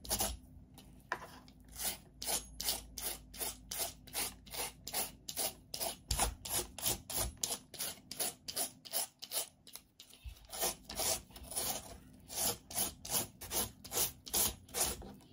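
Rhythmic rasping strokes of a hand-held shredder scraping thin strips off a peeled green mango, about three strokes a second, with a short break a little past halfway.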